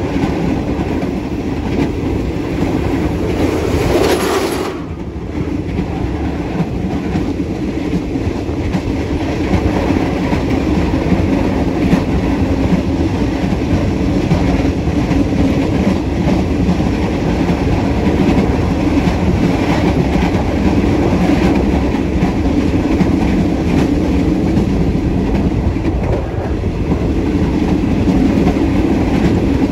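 Rear carriage of a Thai passenger train rolling along the track, with a steady rumble of wheels on rail. About four seconds in there is a brief hissing surge, then the noise drops suddenly for a moment before settling back to the steady run.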